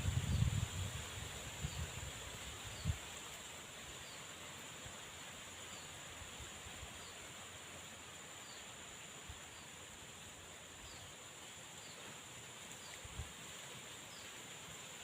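Steady high-pitched insect drone of the evening outdoors, with a faint short chirp repeating about once a second. Low rumbles and a single knock in the first few seconds, then only the steady drone and chirps.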